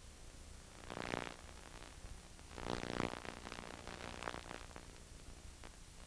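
Steady low hum and hiss from a videotape playback, broken by two short raspy noises, one about a second in and a longer one from two and a half to four and a half seconds in.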